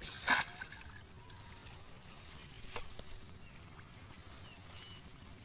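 A short splash of water just after the start, followed by two sharp clicks about three seconds in, over faint background noise.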